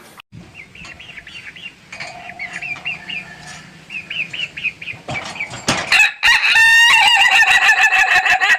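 Ayam ketawa (laughing rooster) crowing. Quick, quieter chirping notes come first, then from about two-thirds of the way in a loud crow that breaks into a fast run of repeated staccato syllables, the breed's typical laughing crow.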